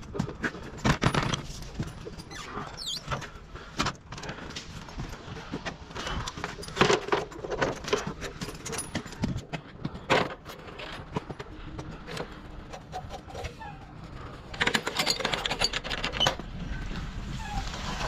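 A fiberglass extension ladder being handled on a work truck's metal ladder rack: a string of clanks, knocks and rattles, thickest a few seconds before the end. A transit bus's engine comes in near the end.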